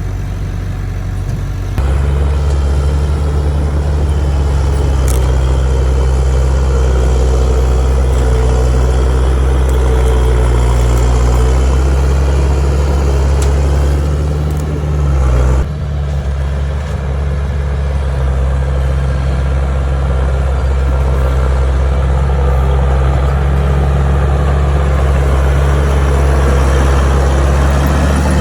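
Heavy diesel engine of earthmoving machinery running steadily, with a deep low drone; the sound steps up abruptly about two seconds in and shifts again about halfway through.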